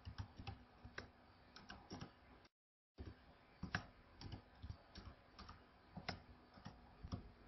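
Faint computer keyboard typing: scattered single keystrokes as short words are entered line by line, with a brief dead-silent gap about two and a half seconds in.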